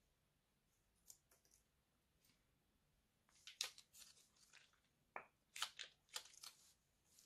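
Slime squeezed out of a plastic piping bag onto a glass dish: quiet squelching with sharp crackling pops of air. A few faint pops come about a second in, then clusters of crackles from about halfway.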